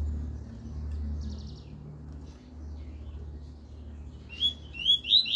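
Double-collared seedeater (coleiro) singing its 'tuí-tuí' song: a short buzzy trill about a second in, then near the end a loud run of quick, upward-slurred whistled notes, over a steady low hum.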